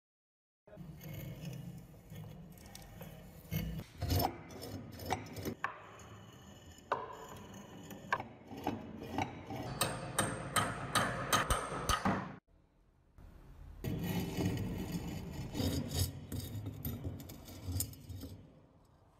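Rusty cast-iron meat grinder parts being scraped and pried with a hand tool: gritty metal-on-metal scraping with scattered sharp clicks. It cuts off suddenly about twelve seconds in, then the scraping starts again.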